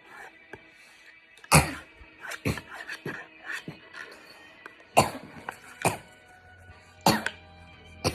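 A pet coughing in short, sharp bursts, about six times across a few seconds, over background music.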